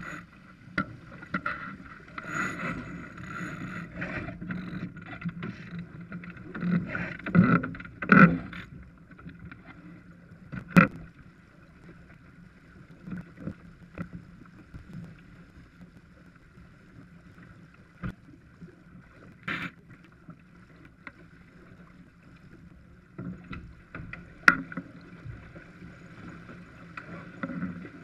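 Water rushing along the hull of a Farr 280 sportsboat under sail, with knocks and clatter from crew and deck gear: a burst of heavy thumps about seven to eight seconds in, then a few single sharp knocks.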